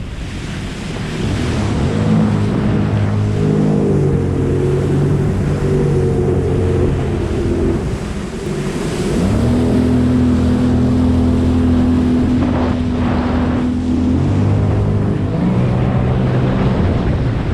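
Sea-Doo Trixx jet ski's three-cylinder Rotax engine running under way, its pitch rising, holding steady, dipping about eight seconds in, then climbing and holding again as the throttle changes. Wind buffets the microphone and water rushes under the hull.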